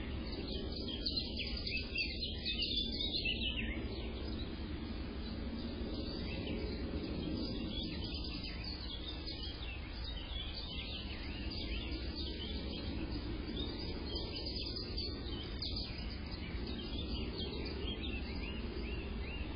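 Small birds chirping in rapid, repeated short calls, over a steady low background rumble.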